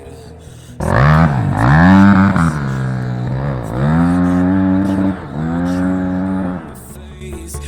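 Honda CRF250's single-cylinder four-stroke engine on its stock exhaust, kicking in suddenly and revving up and back down three times before easing off near the end.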